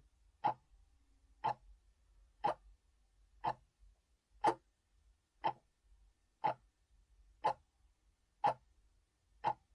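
Timer ticking once a second: ten sharp, even ticks.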